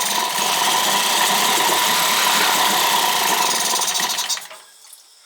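Two-stroke outboard motor running steadily, then cutting out about four seconds in. The motor has a fuel-delivery problem: it is not getting fuel.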